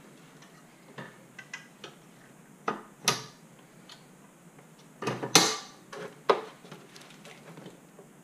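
Clicks and knocks of a monitor being fitted onto an aluminium monitor-arm VESA bracket: a few light clicks, two sharper knocks around three seconds in, and the loudest clatter about five seconds in.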